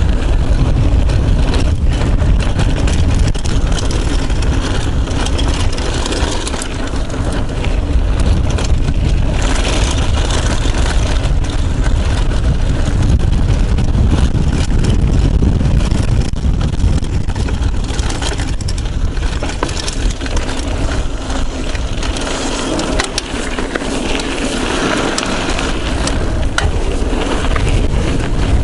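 Wind rushing over a chest-mounted action camera's microphone as a Yeti SB75 mountain bike descends a dry dirt trail at speed, tyres rolling over dirt and stones with scattered clicks and rattles from the bike.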